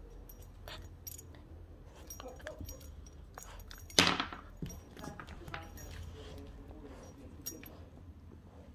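Light metallic clinking and jingling of a puppy's collar ring and leash clip as it moves about, in short scattered clicks, with one sharp, loud knock about four seconds in.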